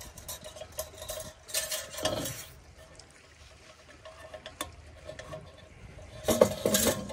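Metal clicks, scrapes and rattles from handling a Campy Gear 2-in-1 portable propane heater as a small propane canister is screwed into its base, with a louder clatter near the end.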